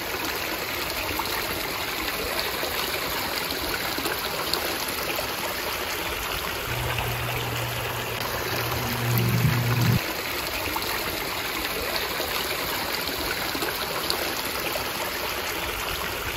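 Steady running water of a stream tumbling over rocks. From about seven to ten seconds in, a low steady hum joins it and cuts off suddenly.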